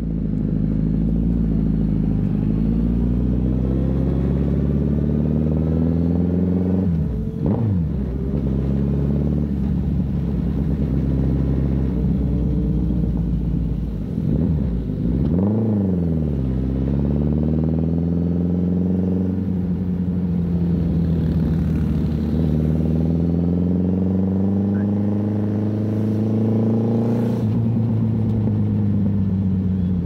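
2016 Suzuki Hayabusa's 1340 cc inline-four running through its twin mufflers with a deep note. The engine note climbs slowly in long sweeps, drops sharply and climbs again about 7 and 15 seconds in, and falls away near the end.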